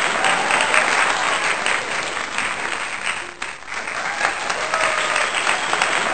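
Audience applauding: dense, steady clapping that dips briefly about three and a half seconds in.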